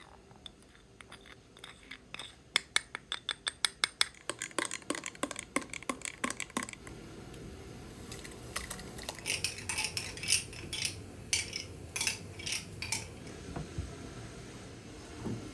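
A metal spoon clinks rapidly against glassware as it stirs, about five strikes a second. After a short pause comes a second run of brighter, uneven clinks and taps of the utensils on glass.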